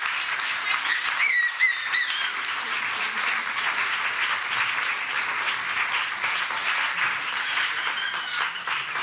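Audience applauding steadily, with a few high calls rising over the clapping about a second in and again near the end.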